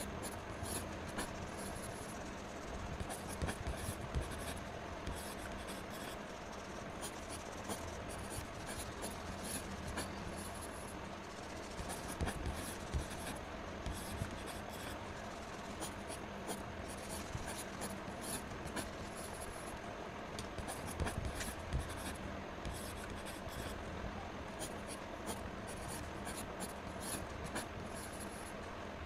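Chisel-tip marker scratching and rubbing on paper in many short strokes as a drawing is outlined and shaded, over a steady low hum.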